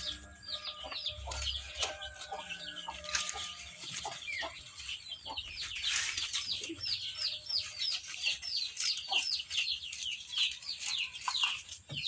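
Chickens: a continuous run of high, downward-sliding peeps, several a second, with lower clucking calls mixed in.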